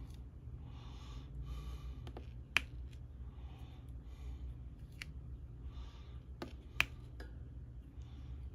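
Diamond-painting drill pen tapping resin drills onto the canvas: a few sharp, irregular clicks, with soft breaths between them over a low steady hum.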